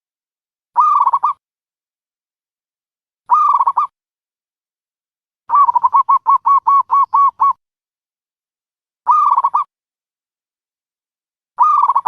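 Dove cooing: short warbling coo phrases repeated about every three seconds, with one longer run of about ten quick notes in the middle.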